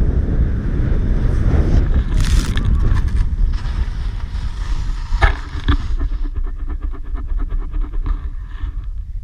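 Wind buffeting the action camera's microphone as a snowboard slides down a snowy slope, with the board scraping through the snow. Two sharp knocks about five seconds in, then a fast, rattling chatter.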